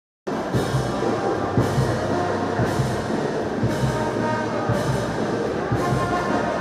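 Orchestral-style music with drums, starting abruptly after a moment of silence, with a sharp percussion hit about once a second.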